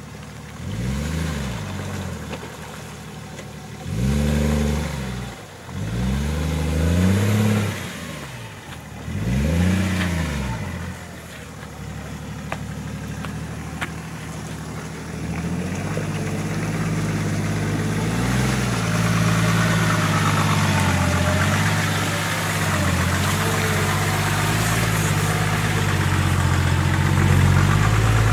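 Nissan Patrol's engine revving up and falling back in four bursts as it climbs a muddy, rutted track. It then pulls under steady load, the engine note growing louder as an SUV drives past close by.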